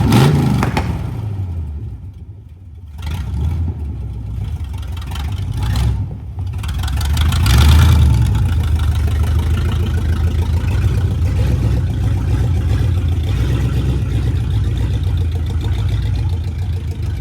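A vehicle engine running. It drops back about two seconds in, picks up again and revs up to a peak near eight seconds, then runs steadily.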